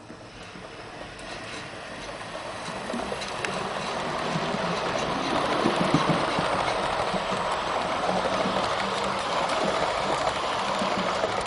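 H0-scale model train of Roco / L.S. City Nightline coaches running past on the layout's track. The steady rolling rattle of the small wheels on the rails grows louder over the first half as the train nears, then holds while the coaches go by.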